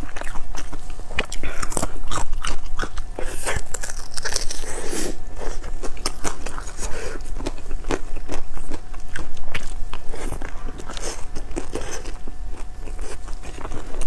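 Close-miked eating: crunching bites of a raw garlic clove and biting and chewing pan-fried pork buns (shengjian bao), a dense, irregular run of crisp crunches and chews.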